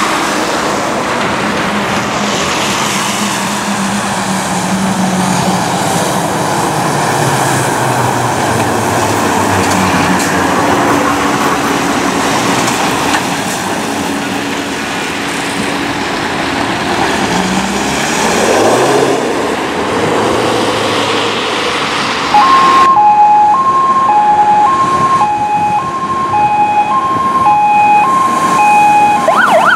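Fire engines passing at speed on a wet road: tyre hiss and diesel engine noise, then about two-thirds of the way through a two-tone hi-lo siren that switches pitch roughly every 0.7 s, changing to a fast rising-and-falling yelp right at the end.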